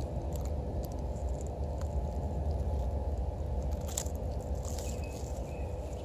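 Steady low drone of distant industrial noise, with a faint steady hum-like tone above it, which the uploader takes for a nuclear power plant. Scattered small clicks and crackles sound over it.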